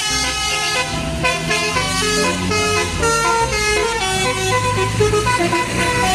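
Coach bus's multi-tone 'telolet' horn playing a quick tune of stepping notes, over a low rumble from the bus.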